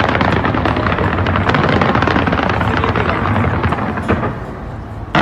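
Dense fireworks barrage: rapid crackling over a steady rumble, easing slightly near the end.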